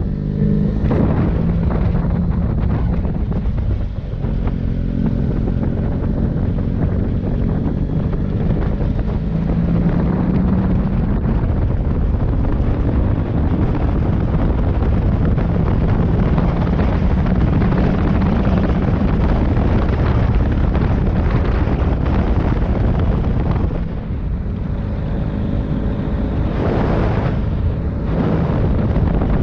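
Motorcycle engine running, its pitch shifting a little, under heavy wind buffeting on the microphone.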